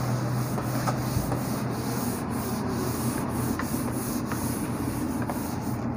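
Cloth duster rubbing across a whiteboard, a steady swishing wipe as the marker writing is erased.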